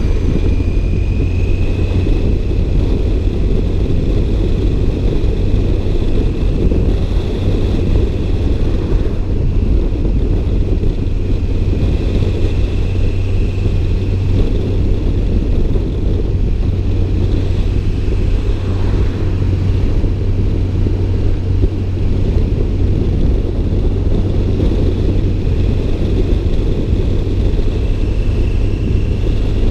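Car running, most likely on the move: a steady low rumble of engine and road noise, with a faint high whine above it.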